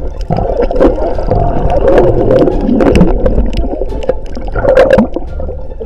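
Sea water sloshing and gurgling around a diver, muffled, with scattered clicks and knocks.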